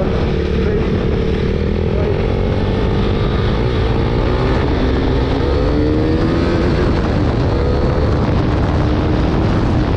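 KTM RC 390 motorcycle's single-cylinder engine running through an Akrapovic full-system exhaust while riding, its revs rising and easing off gently, over a steady low rumble.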